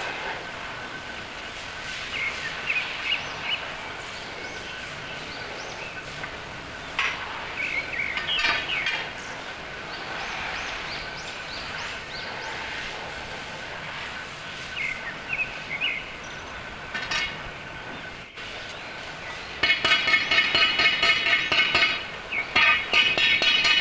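Hammer striking a bent steel tube about five times a second, each blow ringing, starting near the end with a short break partway through. Before that, scattered bird chirps over steady workshop background noise.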